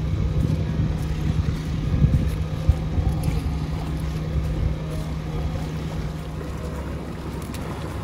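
Motorboat engine running at a steady low hum, with wind buffeting the microphone.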